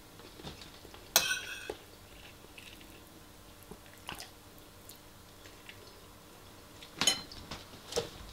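A metal spoon clinks against a ceramic bowl while a person eats, a few sharp clinks with a brief ring. The loudest comes about a second in and two more come near the end. Soft chewing sounds come in between.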